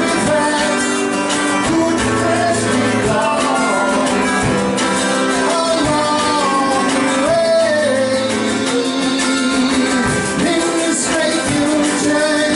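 Live band music: a man singing over strummed acoustic guitar, with a drum kit keeping the beat.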